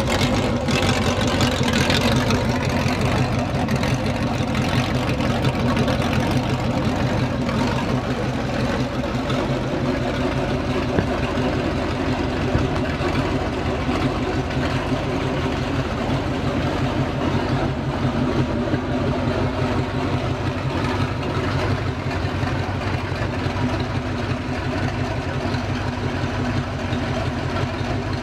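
Freshly rebuilt early-1965 Pontiac 421 V8 running at a steady idle on an engine run stand, exhausting unmuffled through open header pipes.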